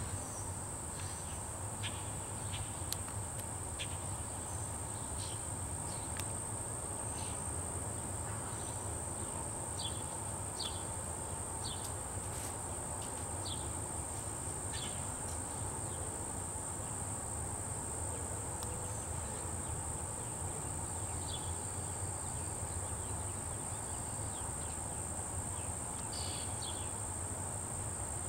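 Steady, unbroken high-pitched insect chorus, with short chirps now and then and a low steady hum underneath.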